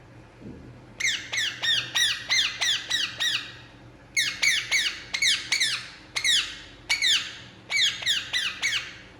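Indian ringneck parakeet calling in three bouts of rapid, shrill, repeated notes, each note sweeping downward, about three or four notes a second.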